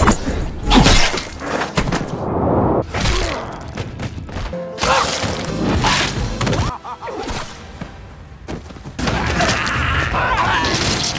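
TV-drama soundtrack: music under a run of sudden violent hits and crashes, one after another with short gaps between them. A scream near the end.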